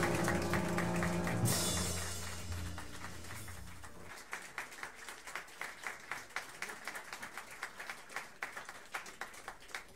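A jazz quartet's final chord, with double bass underneath, dies away over the first few seconds; then the club audience applauds with quick, dense clapping.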